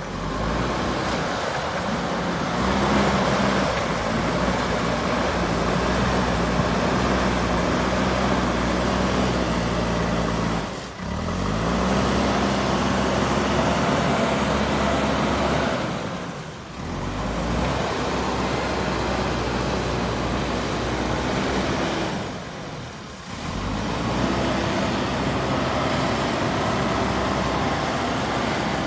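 Diesel engine of a JCB 3DX Super backhoe loader running steadily under load while its front bucket digs. The revs rise and fall a couple of times, and the sound drops away briefly three times.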